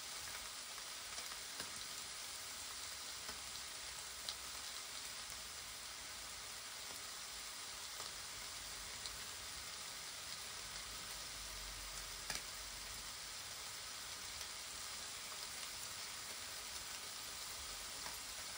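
Lamb chops sizzling between the hot plates of a Tefal Optigrill Elite contact grill, cooking from frozen: a steady, even hiss with occasional faint crackles.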